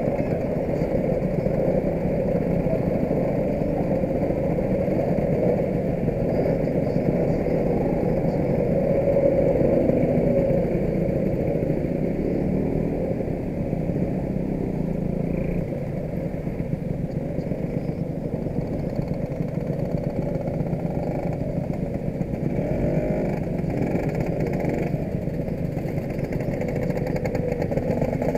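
Lambretta and Vespa scooter engines running together as a group rides along, with the engine noise steady throughout.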